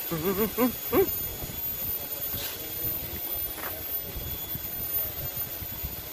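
A short burst of voice in the first second, then a steady low outdoor rumble with no distinct events.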